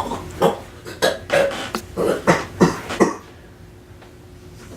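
A person making a quick run of short, sharp mouth noises, about nine in three seconds, then quiet.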